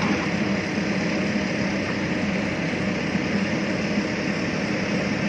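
Heavy machine's engine running steadily with a constant low drone.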